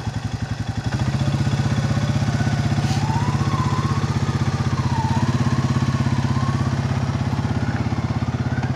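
ATV engine working under load as it backs a utility trailer through mud where the trailer keeps getting stuck. The engine note rises about a second in, holds steady with an even pulse, and eases off near the end.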